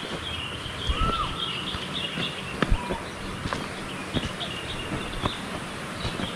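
Forest birds calling: a run of short, high chirps throughout and one clear arched whistle about a second in. Scattered footsteps thud on the trail, louder than the birds.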